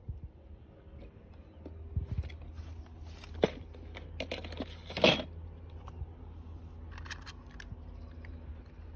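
Toy cars being handled and moved about, giving a few sharp clicks and knocks, the loudest about five seconds in, with some scraping and rustling, over a steady low hum.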